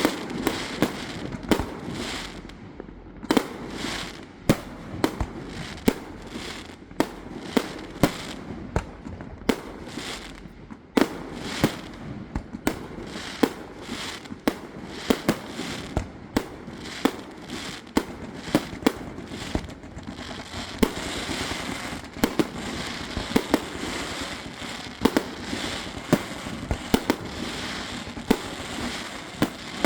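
Aerial fireworks going off: sharp shell bursts one or two a second, each with a short echo, joined from about two-thirds of the way in by a thicker, denser crackle and hiss.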